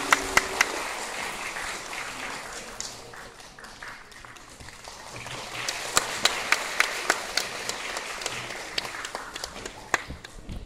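Audience applauding, with a few loud single claps close to the microphone at the start and again from about six seconds in. The applause dips in the middle and swells again. The last held note of the song dies away in the first second.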